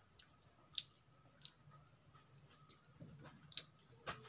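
Faint, scattered wet clicks and squishes of someone eating rice and curry by hand: fingers mixing the food on a steel plate, and mouth sounds of chewing. One click a little under a second in stands out above the rest.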